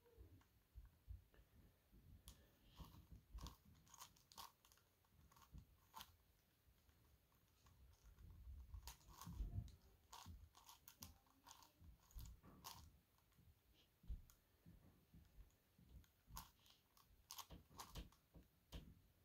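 Faint plastic clicking and clacking of a Gigaminx, a dodecahedron twisty puzzle, as its layers are turned by hand in irregular runs of quick turns.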